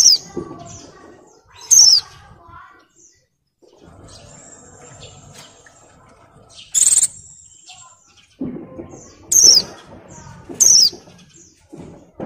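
Caged white-eye (pleci), a female in breeding condition, giving a string of short, sharp high calls that each drop in pitch, spaced one to two seconds apart, to draw males. Soft flutters and thumps come from it moving about the cage.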